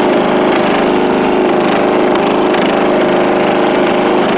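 Riding lawn mower engine running loud and steady through a custom exhaust, under way.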